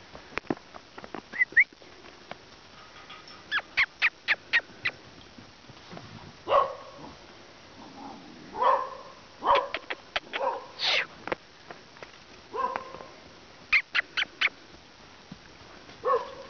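A dog barking, about nine short barks spread over the second half, the loudest sounds here. Between them come quick runs of sharp clicks, about four or five a second.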